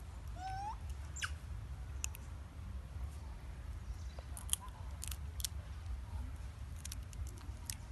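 A young macaque gives a short rising squeak and then a quick falling squeak near the start, followed by scattered sharp high clicks, over a steady low rumble.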